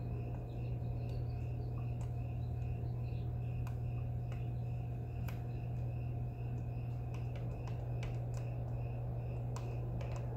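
Steady low hum of aquarium equipment such as an air pump, with a faint high chirp repeating a few times a second and scattered small clicks.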